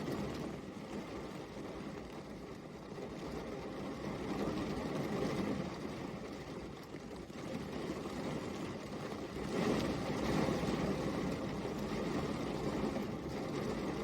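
Steady rain falling, an even hiss that swells a little louder about two-thirds of the way through.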